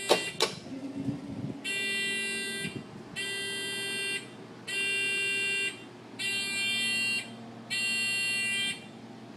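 Five electronic beeps, each about a second long with short even gaps, from a DM3000 lathe's retrofit control box setup; a sharp click comes right at the start.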